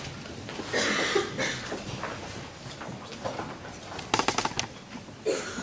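Room sounds of people shifting and handling things on a table, with a brief faint voice about a second in and a quick run of sharp clicks about four seconds in.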